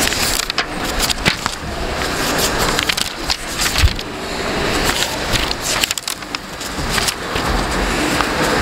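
Paper pages of a book being leafed through and handled close to a microphone: irregular rustling and crackling, over a low rumble of road traffic.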